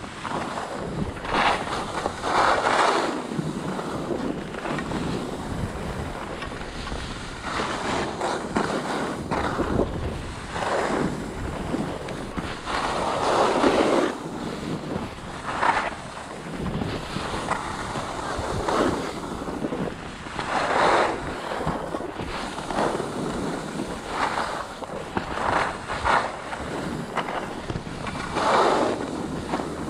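Edges carving through groomed piste snow in linked turns, a scraping swoosh every couple of seconds, over steady wind noise on the microphone from the speed of the descent.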